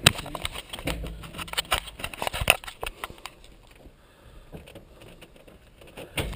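Sharp clicks, knocks and rustling of the cockpit camera being handled, loudest right at the start and about two and a half seconds in, then sparser; the Citabria's engine is not running.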